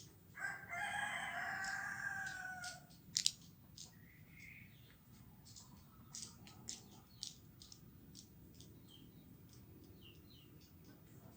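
A rooster crows once, a single drawn-out crow of about two and a half seconds that is the loudest sound. Short high chirps, the twittering of feeding swiftlets, run through the rest, with a sharp click a moment after the crow.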